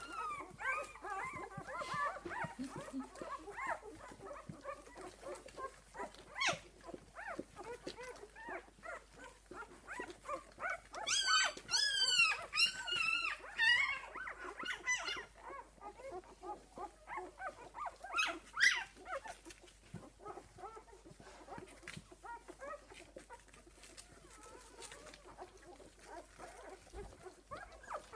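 Six-day-old puppies squeaking and whimpering as they nurse and crawl against their mother, with a run of high-pitched squeals about eleven to fourteen seconds in.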